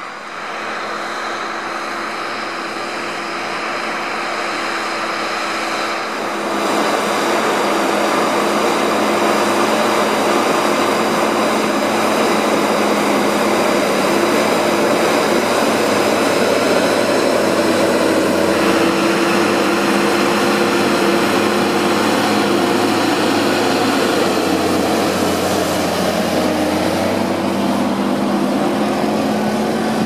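Fendt 936 Vario tractor's six-cylinder diesel engine running steadily under heavy load while pulling a deep plough through the soil, louder from about six seconds in.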